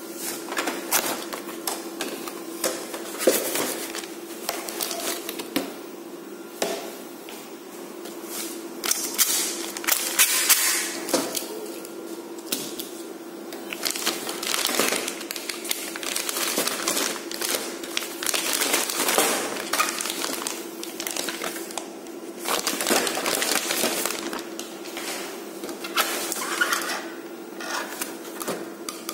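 Plastic film bag crinkling and rustling as X-ray film sheets are unpacked by hand in a printer's film drawer, with cardboard box handling, knocks and clicks. A steady low hum runs underneath.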